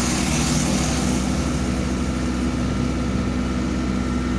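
Excavator diesel engine running steadily, a constant low drone with no change in speed.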